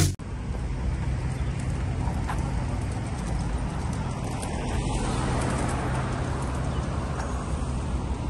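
Steady road traffic noise: cars running along a multi-lane road, an even rumble and hiss.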